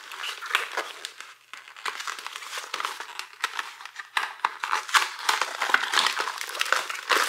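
Paperboard packaging being handled: a thin white cardboard insert box pulled from its carton and its flaps folded open, giving a run of rustling, crinkling and small sharp clicks.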